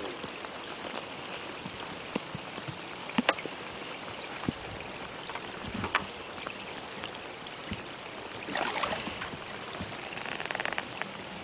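Steady rain falling, an even hiss with scattered clicks and knocks from handling gear, and a brief rustle near the end.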